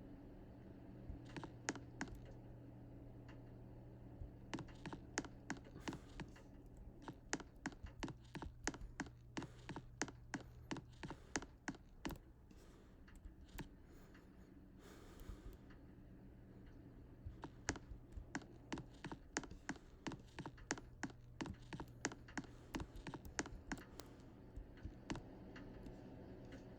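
Rapid, irregular light clicks, some in quick clusters, over a faint steady low hum.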